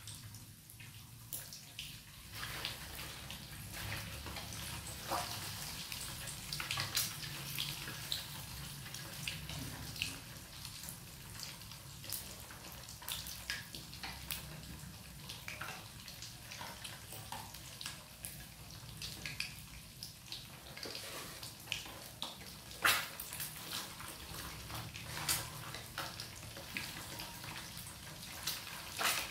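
Batter-coated boiled quail eggs frying in hot oil: a steady sizzle with frequent sharp pops and crackles.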